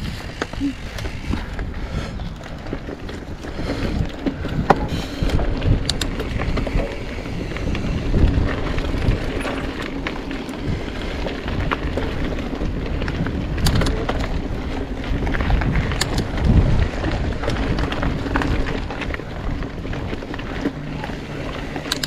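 Mountain bike riding along a dirt trail: a steady low rumble of tyres and wind on the microphone, with scattered clicks and rattles from the bike over rough ground.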